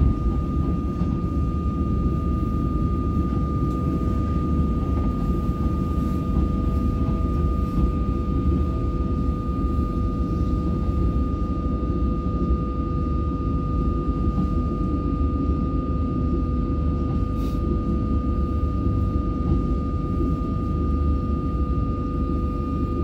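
Cabin noise inside an Alstom Comeng electric suburban train on the move: a steady low rumble with a constant high-pitched hum over it.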